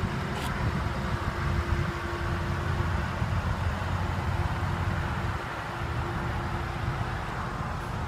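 Steady low vehicle rumble with a constant hum underneath and no distinct events.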